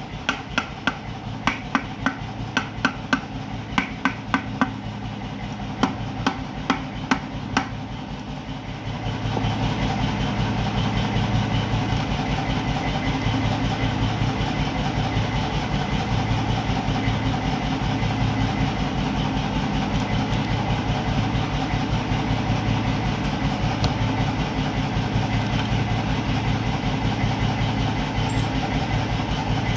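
Sharp metallic taps, a few a second, over a low engine-like hum. About nine seconds in the taps stop and a louder, steady engine-like drone with a regular pulsing beat takes over.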